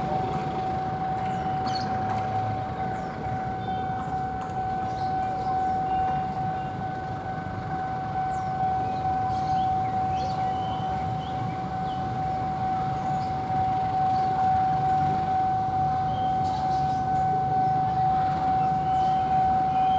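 Railway level-crossing warning alarm sounding one steady, unbroken high tone over the rumble of a passing train.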